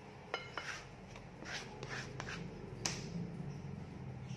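Kitchen handling sounds: a plastic bench scraper clicking and tapping against a glass pie dish, with soft rustling as a sheet of pizza dough is lifted and laid over the meat filling. The sharpest tap comes nearly three seconds in.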